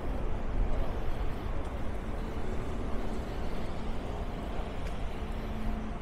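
Steady city street traffic: vehicles running past, a continuous low rumble with a faint engine hum.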